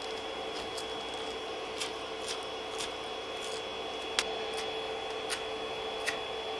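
Steady hum of the Creality CR-10 S5's hotend cooling fan, with a handful of light metallic clicks and scrapes as the brass nozzle is unscrewed from the hotend with a socket tool and a new 0.8 mm nozzle is threaded in by hand. The sharpest click comes a little past four seconds in.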